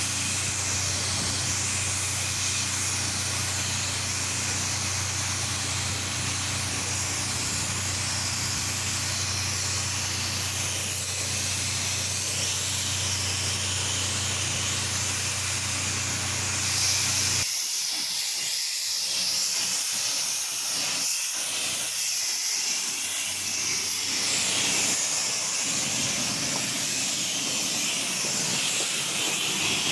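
Pressure washer spraying water and cleaning mix onto a wood deck: a steady loud hiss of spray over the low hum of the machine. A little over halfway through the hum drops away and the spray hiss turns brighter.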